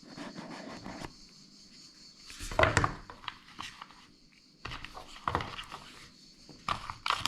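A small cardboard box and its packaging being handled and opened by hand: irregular knocks, scrapes and rustles, loudest about two and a half seconds in.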